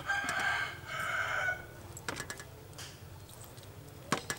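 A rooster crowing once, a call about a second and a half long with a short break in the middle. Later come a few sharp knocks of a wooden pestle in a wooden mortar.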